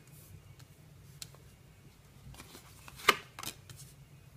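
Tarot cards being laid down and slid on a wooden tabletop: a few light, sharp taps with some rubbing, the sharpest about three seconds in.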